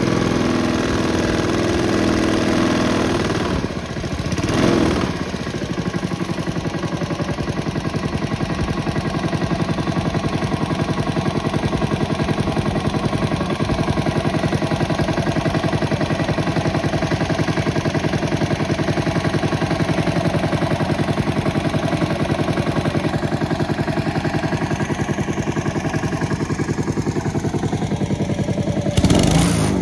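Honda lawn mower's single-cylinder four-stroke engine running steadily. Its sound briefly dips and swells about four seconds in.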